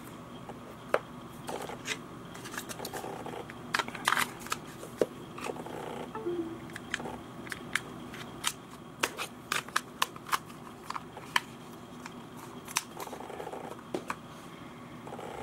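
Sharp little plastic clicks and handling noises as a Rapoo M100 wireless mouse is turned over and an AA battery is fitted into its battery compartment, with a quick run of clicks about nine to eleven seconds in.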